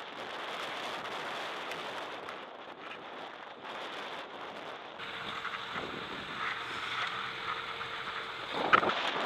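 Wind rushing over the microphone while a BMW F800GS parallel-twin engine runs underneath at speed on a dirt track. About halfway through, the engine note comes through as a steady hum, and a single sharp knock sounds near the end.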